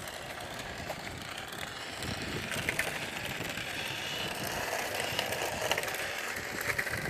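Remote-control toy Porsche driving: its small electric motor and gears whirring, with scattered clicks and rattles, a little louder from about two seconds in.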